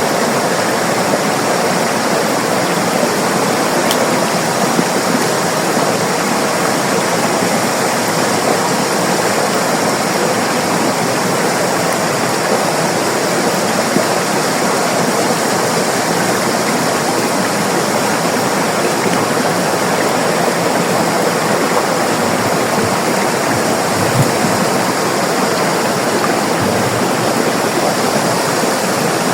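River water rushing and splashing over rocks in a steady, loud, unbroken rush.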